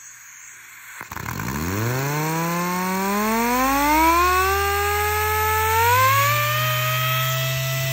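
Jet JAT-730 5-inch pneumatic random orbital sander running free on compressed air. A faint hiss comes first, then about a second in the motor spins up, and its whine climbs steadily in pitch as the speed adjustment is opened, pausing briefly before rising again near the end.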